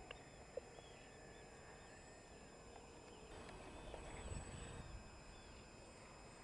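Near-silent outdoor ambience with faint bird chirps, a short run of them past the middle, and a single sharp click about half a second in.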